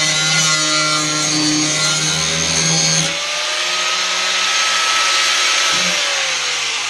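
Handheld power tool working on the car's sheet-steel floor: a steady whine over a harsh hiss. About three seconds in the tone shifts, and near the end the pitch slides down.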